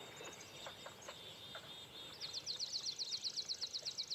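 Faint outdoor dawn ambience with scattered bird chirps; about two seconds in, a bird starts a fast trill, a rapid run of short, high, falling chirps about ten a second.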